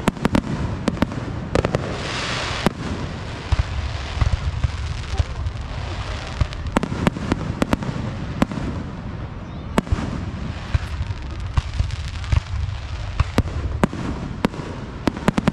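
Aerial firework shells bursting in quick succession: many sharp bangs, often two or three close together, over a steady low rumble. About two seconds in, a hissing, crackling stretch follows a burst.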